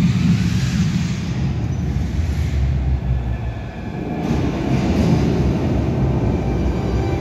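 Light-show soundtrack of deep, rumbling sound effects with no clear melody. About four seconds in it turns darker and fuller, and faint held tones come in.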